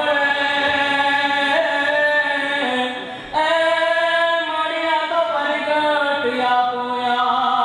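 A voice chanting in long held notes that step up and down in pitch, breaking off briefly about three seconds in.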